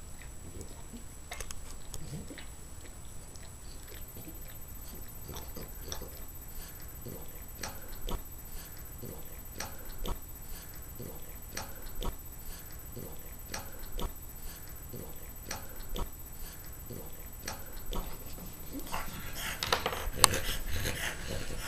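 A small flat-faced dog licking a person's face: a long, irregular run of short wet licking and smacking clicks, growing louder near the end.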